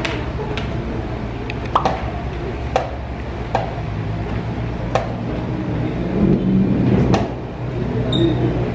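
Wooden chess pieces set down on the board and chess clock buttons pressed during fast blitz play: sharp, irregular knocks about one to two seconds apart over a steady hum in the hall.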